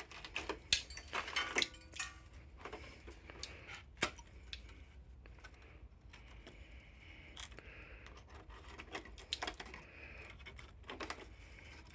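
Irregular light metallic clicks, taps and scraping from hand tools and metal being handled, with a few sharper knocks and short stretches of scratchy rasping.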